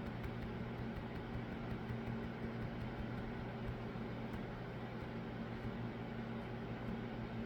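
A steady low hum over an even hiss, unchanging throughout, with a few faint high clicks.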